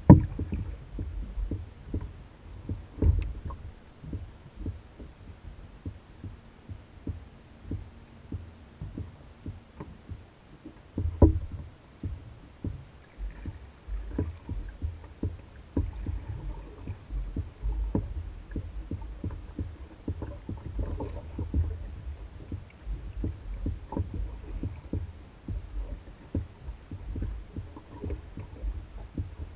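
Water slapping and lapping against the hull of an Old Town Guide 119 canoe bobbing on the lake, heard as a run of irregular low thumps and hollow knocks. The biggest knocks come right at the start, at about three seconds and at about eleven seconds.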